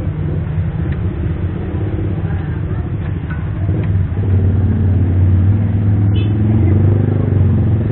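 Motorbike engine running close by on the street, a steady rumble that grows louder about four seconds in, over general street traffic.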